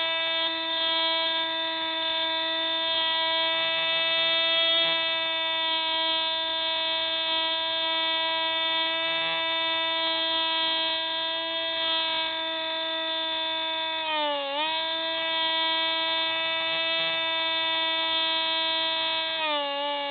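Hubsan Spyhawk RC plane's electric motor and propeller whining steadily, heard from on board. The pitch dips briefly about two-thirds of the way through and settles lower near the end.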